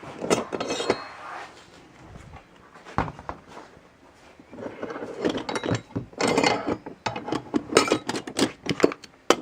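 Loose metal garage-door hardware such as hinges and brackets clinking and rattling as it is rummaged through, a run of quick clinks and knocks that gets busier in the second half.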